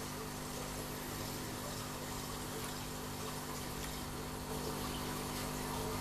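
Aquarium water pump running with a steady low hum over bubbling, splashing water, a little louder about four and a half seconds in.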